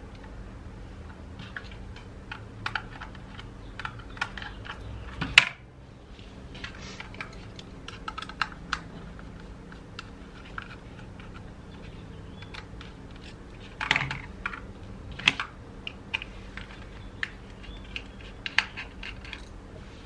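Small precision screwdriver backing screws out of a solid-state drive's metal caddy: scattered light metallic clicks and taps. The sharpest click comes about five seconds in, with a few more near the middle and near the end.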